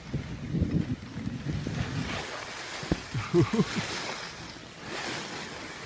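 Skis sliding and scraping over groomed snow, a steady hiss, with wind rumbling on the microphone. A short wavering pitched sound about three seconds in is the loudest moment.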